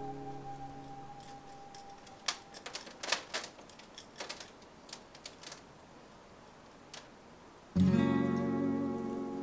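Solo acoustic guitar music: a held chord fades away, a run of light, sharp clicks and taps follows, and a new strummed chord comes in loudly near the end and rings on.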